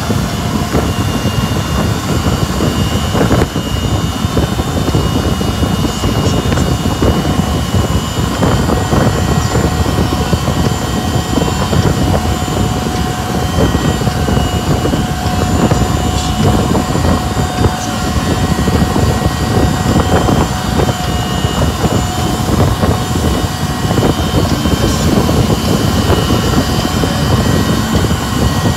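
Motorboat running fast, a steady rush of engine and churning wake water, with wind buffeting the microphone.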